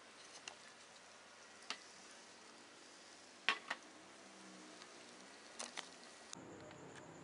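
Sugar and water cooking down into caramel in a nonstick frying pan on a gas stove: a faint steady sizzle with a few scattered sharp pops, the loudest about halfway through.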